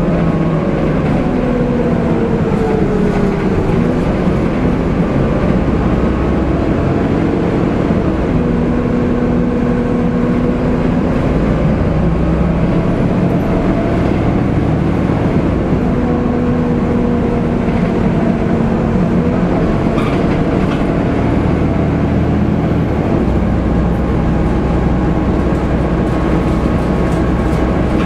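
Interior of a Volvo B7TL double-decker bus under way: the diesel engine and ZF automatic gearbox running under road rumble, the engine note falling in pitch in the first few seconds and then holding steady for stretches. A single knock from the bodywork about twenty seconds in.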